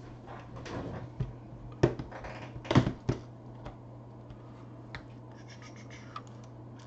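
Hands rummaging through small plastic parts bins: scraping, rustling and clattering, with the loudest knocks about two to three seconds in, then lighter taps. A steady low hum runs underneath.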